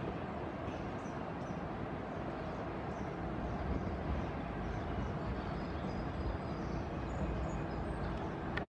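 Steady rumble of road traffic on a highway overpass, with a few faint high chirps above it. It cuts off abruptly near the end.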